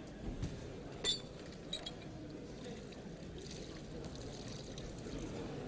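Boxing arena background: a steady crowd murmur during the bout, with a sharp click that rings briefly about a second in and a smaller click shortly after.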